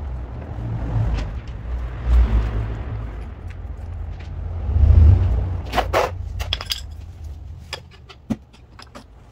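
Small metal screws and the Valvetronic motor adapter plate of a BMW N62 V8 being handled, giving a run of sharp metallic clicks and clinks from about halfway on, the loudest pair near the middle. Under it, a low rumble on the microphone that swells about five seconds in.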